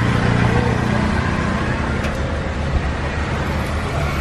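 Steady street noise: a continuous low rumble of road traffic under an even background hiss.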